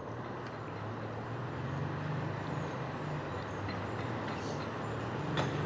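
Steady city street ambience: a low, even hum of road traffic.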